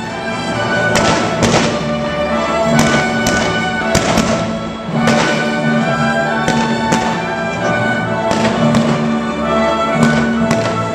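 Fireworks bursting overhead in repeated sharp bangs, irregularly spaced about one or two a second, over loud orchestral-sounding music.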